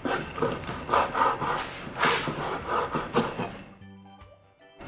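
Chef's knife cutting squid on a wooden cutting board: a run of cuts, each stroke knocking and scraping the blade against the wood, pausing shortly before the end.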